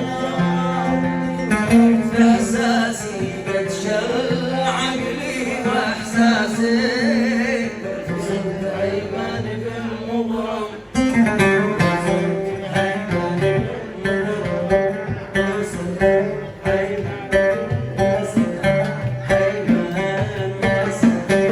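Yemeni song music: a plucked string instrument with singing, the plucking turning busier and more rhythmic after a brief dip about eleven seconds in.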